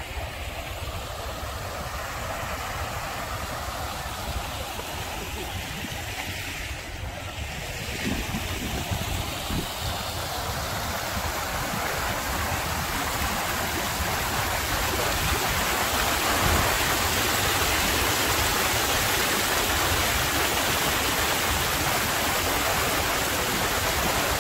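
Stream water rushing, a steady hiss that grows gradually louder.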